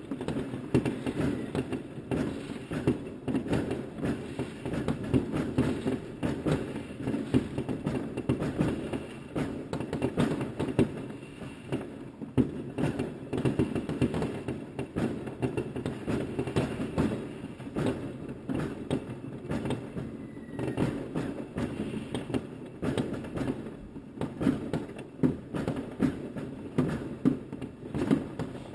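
Many fireworks and firecrackers going off at once: a dense, irregular crackle of bangs and pops that never lets up.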